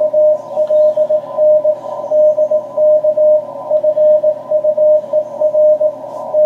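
Morse code signal on the 40-metre band received through an amateur radio transceiver: a single steady tone keyed in dots and dashes over receiver hiss narrowed by the CW filter.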